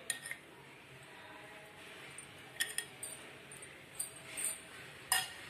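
A few faint, scattered clinks and taps of a ladle against the pot as chicken pieces are laid onto the rice.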